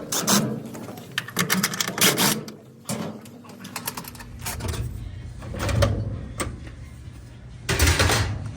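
Quick rattling clicks from tools and washer parts being handled, then a few dull knocks about halfway through and near the end.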